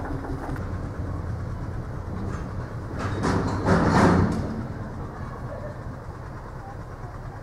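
Small narrow-gauge diesel field-railway locomotive (a Schöttler DS 14) running with a steady low idle. About three seconds in, a louder rushing noise swells up and fades after about a second and a half.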